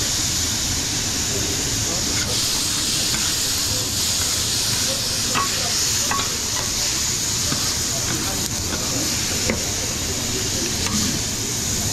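Steady kitchen hiss at a food counter, with a few light clicks and taps as food is served.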